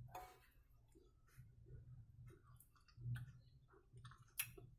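Near silence with faint eating sounds: a person chewing food with small mouth clicks, and one sharper click near the end.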